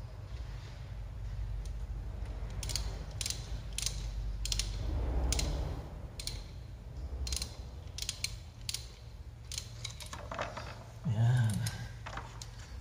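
Socket ratchet wrench clicking in short irregular runs as a bolt is turned on the underside of a scooter engine. A brief louder voice-like sound comes near the end.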